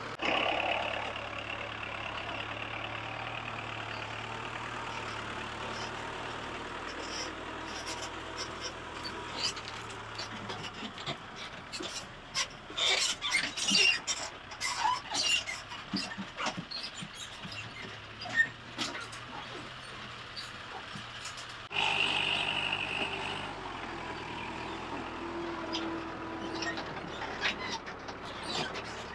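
Kubota MU4501 tractor's diesel engine running steadily while it hauls a loaded trailer over a rutted, muddy track. The trailer's body clatters and knocks loudly for a few seconds near the middle.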